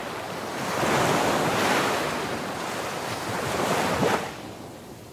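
Ocean surf: waves breaking and washing in, swelling twice and fading out near the end.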